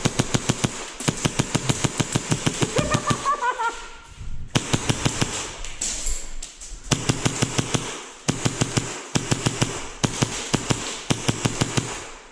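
Airsoft gun firing on full auto in several long, rapid bursts of evenly spaced shots, with short pauses between them.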